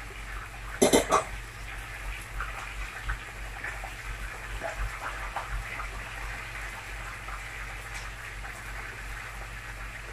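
Spiced stock bubbling at a boil in an aluminium pot, a steady hiss with many small irregular pops. About a second in, two quick loud knocks and a splash as chicken pieces go into the pot.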